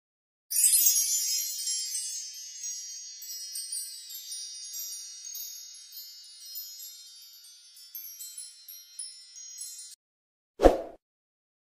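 Shimmering wind-chime tinkling: many high, ringing notes that come in loud about half a second in, thin out and fade slowly, then stop abruptly near ten seconds. A short, low thump follows near the end.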